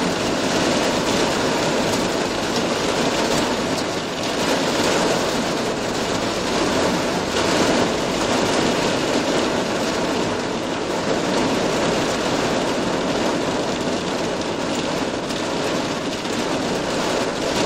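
Heavy rain falling steadily in a thunderstorm, a constant loud hiss with no thunderclap standing out.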